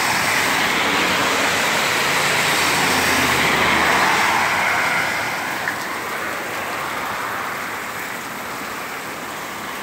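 Heavy rain falling, with a car driving through standing water on a flooded road. The hiss of its tyres and spray swells to a peak a few seconds in, then slowly fades as it passes.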